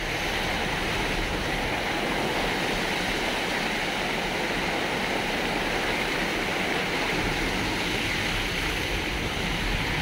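Steady rush of water pouring over a dam's overflow crest in a spillway cascade.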